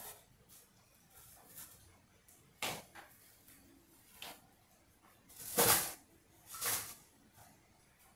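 Scattered handling noises, a few short knocks and rustles. The loudest comes a little over halfway through and another about a second later.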